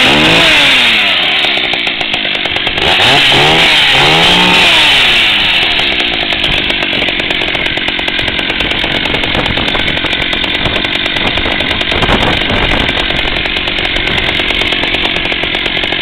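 Stihl 031 AV two-stroke chainsaw engine running. The throttle is blipped about three times in the first five seconds, each rev rising and falling, and then the engine settles into steady running.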